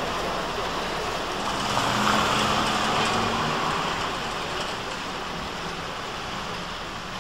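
Street traffic noise, with a motor vehicle passing about two seconds in: its low engine hum rises and then fades.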